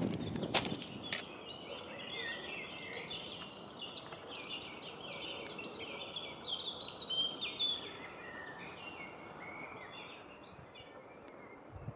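Wild songbirds singing: a dense run of quick, high chirps and trills that thins out toward the end. In the first second, a few sharp clacks of stones and a trekking pole on loose rocky scree.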